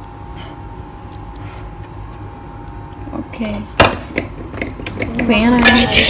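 A steady low hum, then one sharp knock about four seconds in, followed by a woman's voice near the end.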